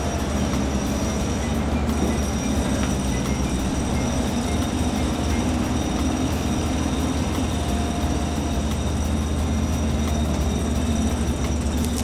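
Steady, loud low rumble of heavy vehicle machinery running evenly, with a thin high whine above it.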